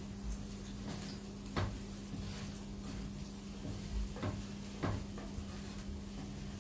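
Light knocks of a frying pan and utensils being handled on an electric cooker: one about a second and a half in, then two close together about three seconds later, over a steady low hum.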